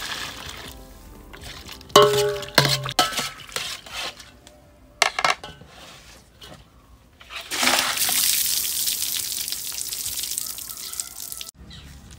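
Raw chicken pieces being washed in an aluminium basin: metal clanks with a short ringing knock of the basin about two seconds in and a clink about five seconds in, then water pouring and splashing steadily for about four seconds.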